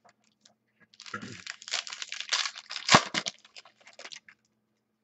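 Plastic crinkling and rustling as trading cards in clear plastic sleeves are handled, starting about a second in and stopping just past four seconds, with one sharp snap near three seconds, the loudest sound.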